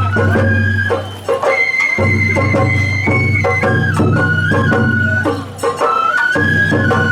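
Sawara bayashi festival music: a shinobue bamboo flute plays a high melody of held notes over the ensemble, pausing briefly twice.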